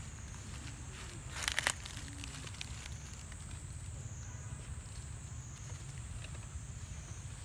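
Outdoor ambience: a steady low rumble under a steady, slightly wavering high hum, with a short cluster of clicks about a second and a half in.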